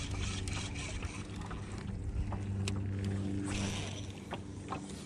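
A small fishing boat's motor running with a steady low hum that eases off and picks up again, with scattered light clicks and knocks from gear in the boat.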